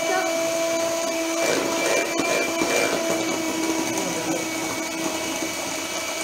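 Handheld electric mixer running steadily, its twin beaters whipping eggs and sugar in a bowl: an even motor whine.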